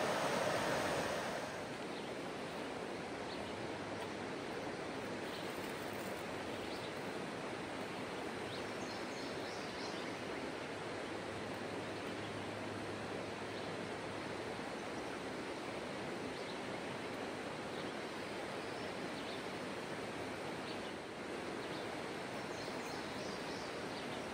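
Creek water rushing steadily over a shallow, rocky riffle. It is louder for about the first second and a half, then settles into a softer, even rush.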